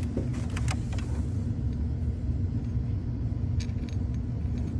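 2011 Ford Explorer's 3.5-litre V6 idling rough with an uneven low pulsing, the shake of a misfire on cylinders 5 and 6 caused by cracked spark plugs. A few light metallic clicks in the first second.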